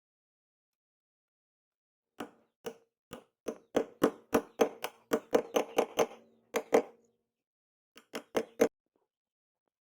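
Hammer blows on metal, each strike leaving a short metallic ring. They start about two seconds in, speed up from about two to three blows a second, stop, then come again as four quick blows near the end.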